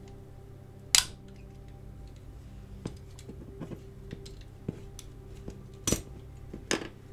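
Sharp metal clicks and clinks of a small die-cast metal model being pried apart with a small hand tool, the loudest about a second in and two more near the end, with lighter ticks between.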